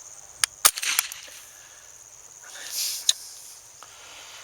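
Semi-automatic .22 LR rifle (Savage 64) firing: a sharp crack about two-thirds of a second in, the loudest sound, with smaller clicks around it and another crack about three seconds in. Steady insect chirring runs underneath.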